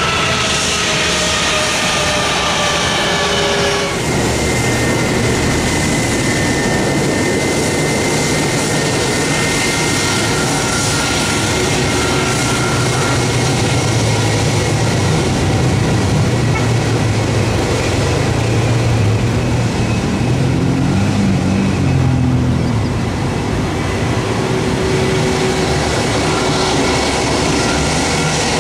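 An ATR twin-turboprop airliner slowing on its landing rollout, its engine and propeller whine falling in pitch. About four seconds in the sound cuts to an Airbus A320's jet engines running at taxi power: a steady whine over a heavy rumble that swells for a while and then eases.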